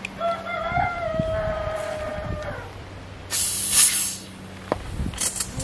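A rooster crowing once: a single long call that rises a little, holds, and falls away at the end. About three seconds in comes a brief, loud hiss, followed by a couple of sharp clicks near the end.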